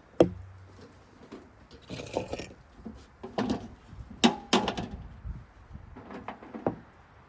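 A series of knocks, clunks and rubbing, as of gear being handled; the first knock, just after the start, is the loudest.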